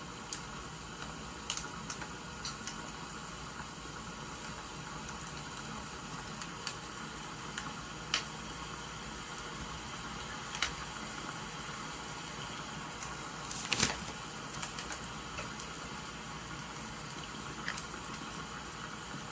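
Wood fire crackling, with sharp pops scattered over a steady hiss of rain. A louder cluster of pops comes about two-thirds of the way through.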